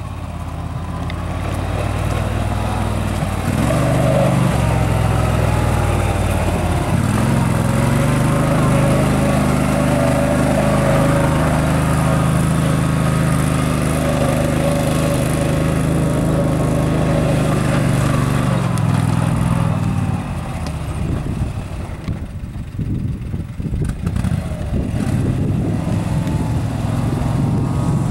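Club Car IntelliTrak 4x4 UTV's engine running as it drives. The engine note strengthens about four seconds in and holds steady, then drops and turns uneven for the last several seconds.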